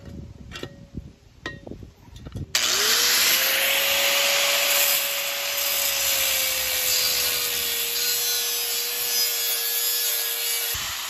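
A few sharp metal clanks from a pipe wrench on a propane tank's valve. Then an angle grinder starts abruptly and cuts through the tank's rusted steel collar with a loud, steady grinding hiss, its motor pitch sagging slowly under the load. It is switched off near the end, its pitch starting to wind down.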